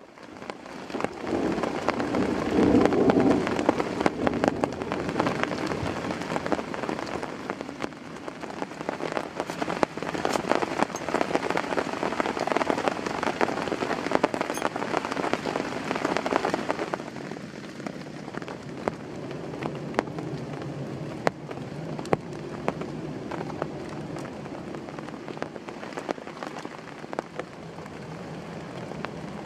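Heavy rain falling, with many separate drops striking close by. About seventeen seconds in, it becomes noticeably quieter and steadier.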